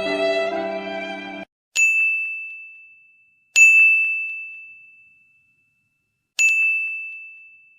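A sad violin music cue that cuts off suddenly, followed by a bell-like ding sound effect played three times, each a single high ringing note that fades away over about a second and a half.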